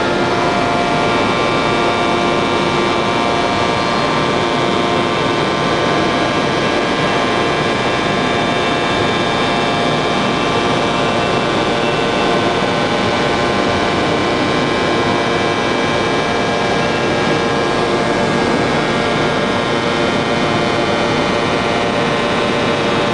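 1250-ton open-die forging press running: a steady machine drone with several held whining tones and no distinct blows.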